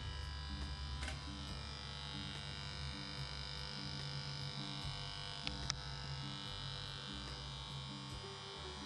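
Corded electric hair clipper buzzing steadily as it shaves hair close at the side of the head with no guard comb fitted. Two brief clicks a little past the middle.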